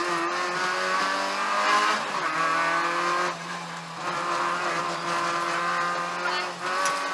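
Peugeot 205 1.9 GTI's 1.9-litre four-cylinder engine running hard under load, heard from inside the stripped cabin. Its note falls away briefly about two seconds in, again around three and a half seconds, and near the end, then picks up again each time.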